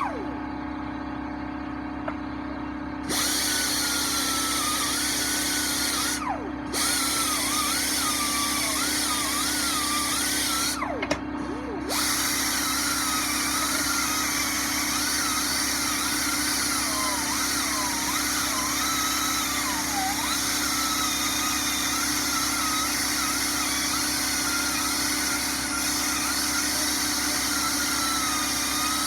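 Power tool spinning a wire brush against the metal of a machinist's vise, stripping paint. Its whine wavers up and down in pitch as it is pressed and eased. It starts about three seconds in and cuts out briefly twice, with a steady low hum running underneath.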